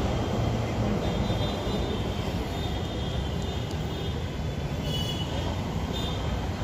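Steady low rumble of open-air city background noise, with faint high-pitched squeals now and then, about three seconds in and again about five seconds in.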